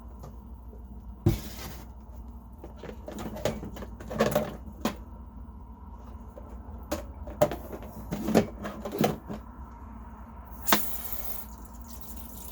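Plastic coffee-maker parts being handled: scattered clicks and knocks over a steady low hum, with a short hiss about eleven seconds in.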